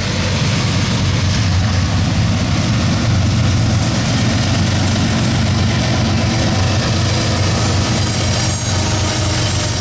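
Two GE diesel-electric locomotives, a C44-9W and an ES44C4, passing close by with a loud, steady, low engine drone.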